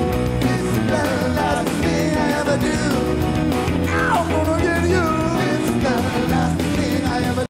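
Rock band playing live in an instrumental jam: drums, bass guitar, electric guitar and keyboard, with a lead line of bending, sliding notes over a steady low groove.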